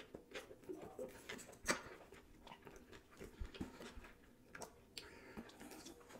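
Close-miked chewing of a bite of chopped scallop sushi roll: faint, irregular mouth smacks and clicks.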